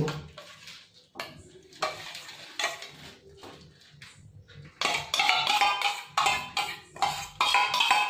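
Metal spoon scraping and tapping against a stainless steel bowl while scooping thick tomato pizza sauce out of it. A few soft scrapes come first, then from about five seconds in a quick run of louder scraping strokes with a metallic ring.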